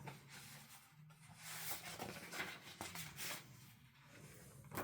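Faint rustling of paper as the pages of a picture book are handled and turned, with a short click near the end.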